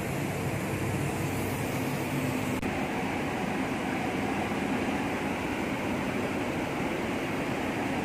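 Steady, even rushing noise with a low hum underneath, with no change in level throughout.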